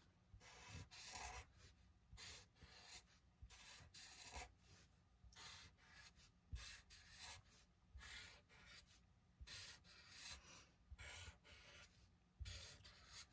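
Faint scratchy strokes of a Sharpie marker drawing on paper, short strokes coming one or two a second in an irregular rhythm.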